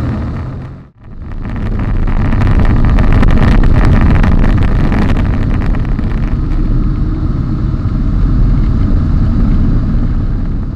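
Eurofox microlight's engine and rushing airflow heard from inside the open-sided cockpit during a steep spin-test descent, loud and steady. It cuts out briefly about a second in, then resumes until it fades out at the end.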